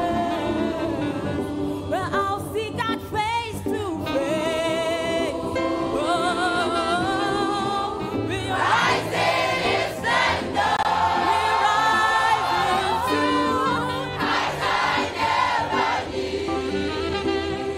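A female soloist sings a gospel song with a large mass choir singing along behind her; the full choir grows louder about halfway through.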